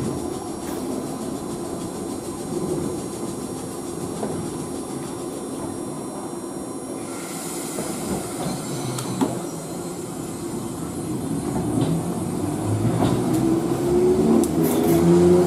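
Keifuku Randen tram standing at a platform: a burst of air hiss comes in about halfway through, then the electric traction motors whine, rising in pitch and growing louder as a car starts to pull away near the end.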